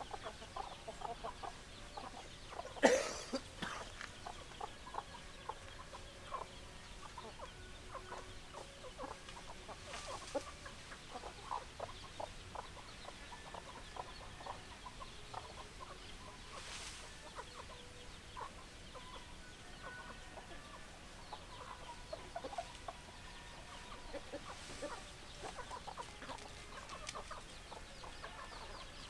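A flock of hens clucking, many short calls overlapping throughout, with one sudden sharp sound, the loudest in the stretch, about three seconds in.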